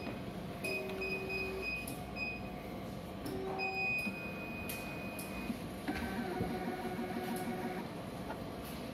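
BS-3000P semi-automatic chemistry analyzer running while it measures a reagent blank: a steady machine hum with high tones that switch on and off, changing to a different hum about six seconds in.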